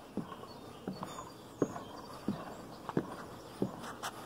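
Footsteps climbing deck stairs: about six even steps, roughly two-thirds of a second apart.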